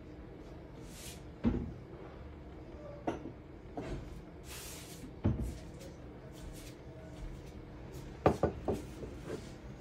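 Electric milk frother heating and whisking milk with a faint steady hum. Several sharp knocks and clatters sound over it: a loud one about a second and a half in, another around five seconds in, and a quick cluster of three or four near the end.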